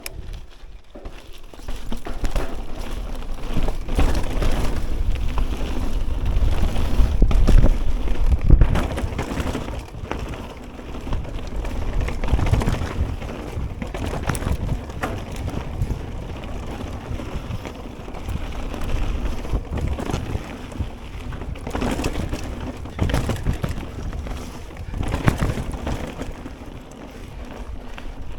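Ragley BigWig mountain bike riding a dirt trail: wind rumbling on the action camera's microphone, tyre noise and repeated sharp clatters and knocks as the bike goes over rough ground. The loudness rises and falls with the terrain.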